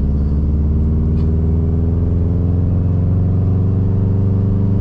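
2006 Subaru WRX's turbocharged flat-four engine pulling under load, its pitch rising slowly over the first couple of seconds, then holding about steady.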